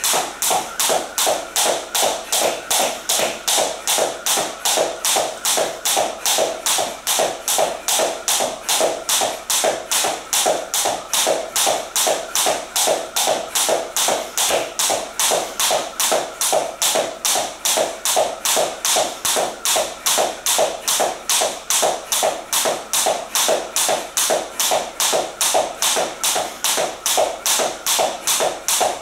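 Jump rope skipping on a wooden floor: the thin cable rope tapping the floor and sneakers landing, in a quick, even rhythm of about two and a half taps a second.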